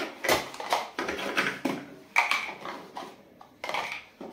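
Hard plastic storage bins being handled, with a series of irregular clacks, knocks and rustles as the nested bins and the packing pieces inside them are moved about.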